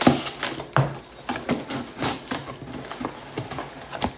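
Paper and plastic packaging rustling and crinkling in irregular bursts as a package is handled and opened by hand.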